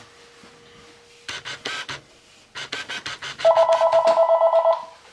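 Electronic camera beep, a loud buzzy two-tone beep lasting just over a second near the end. Before and under it come bursts of quick scratchy strokes as a grooming tool is worked through a dog's coat.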